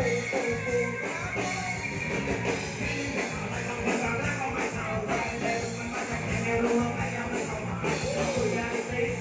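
Live rock band playing: a singer over electric guitar and drums.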